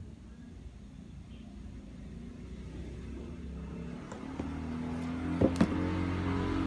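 A motor hums steadily and grows louder over the last few seconds, with a couple of sharp clicks near the end.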